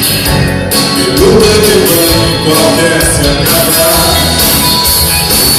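Live band playing an instrumental passage between sung lines: acoustic and electric guitars over a steady beat.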